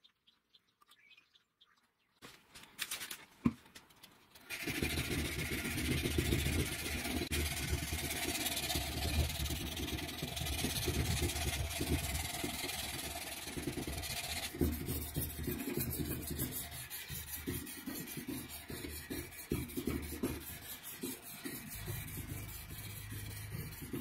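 Hand file rasping over a steel knife blade ground from a large bearing, clamped in a vise, in repeated back-and-forth strokes. It starts a few seconds in after a few clicks and then goes on steadily.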